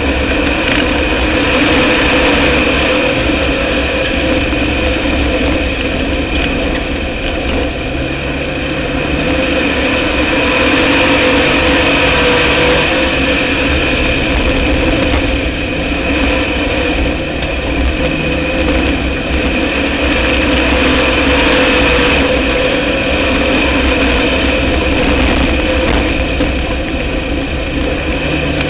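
Dirt-track race car's engine heard from inside the car, running loud and continuously with slight rises and falls in speed.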